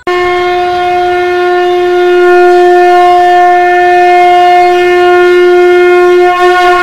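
One long, loud, steady note from a wind instrument, held at a single pitch for about seven seconds.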